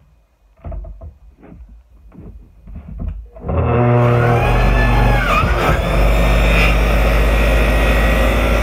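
A few knocks and clatters as the saw is handled, then about three seconds in the electric portable table saw's motor switches on, spins up and runs loud and steady.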